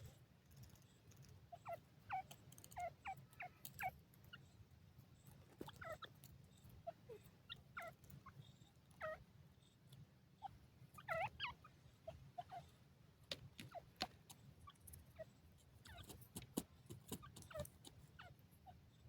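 Grey francolin giving faint, short call notes scattered irregularly, some falling in pitch, with occasional sharp clicks and a low steady hum underneath.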